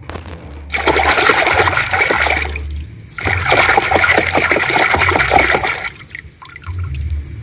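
Water splashing and sloshing as a hand scrubs a plastic toy animal in a tub of soapy water. It comes in two spells, starting about a second in and again from about three seconds, stopping a second or so before the end.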